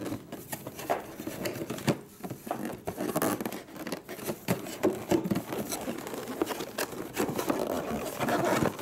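Fingers scraping, tapping and rubbing on a cardboard box as it is worked open: a steady string of irregular small scrapes and knocks, busier near the end.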